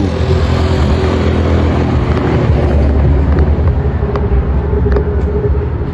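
A car driving along the road, heard from inside the cabin: a steady rumble of engine and road noise, with a few faint ticks.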